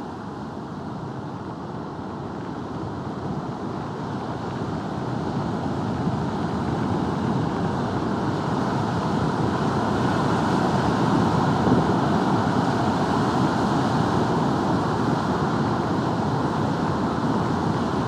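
Heavy surf from a typhoon-driven sea breaking on a beach, a steady rush of waves mixed with wind on the microphone, growing louder over the first ten seconds or so.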